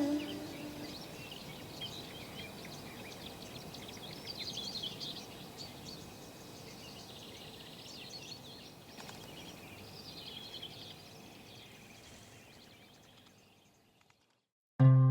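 Small birds chirping and twittering over a faint steady outdoor background. The sound fades out to silence near the end, and music cuts in abruptly just before the close.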